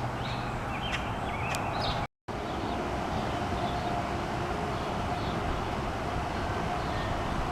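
Outdoor yard ambience: a steady hum of distant traffic with small birds chirping now and then. A brief dropout to silence comes about two seconds in, where two clips are joined.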